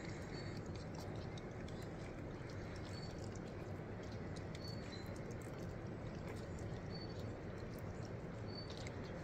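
Two cats eating chunks of wet cat food from a plastic bowl: small wet chewing clicks and smacks scattered through a steady low background hiss, with a few short, high peeps.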